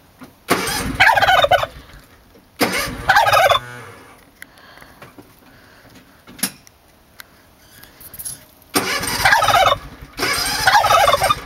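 A domestic tom turkey in full strut gobbling: four loud rattling gobbles about a second each, two close together in the first few seconds and two more near the end.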